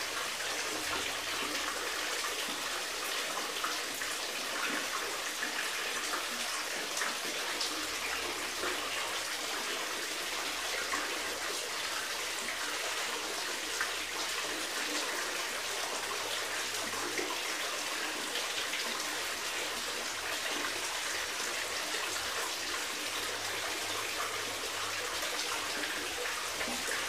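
Water running and splashing steadily, a continuous trickling patter.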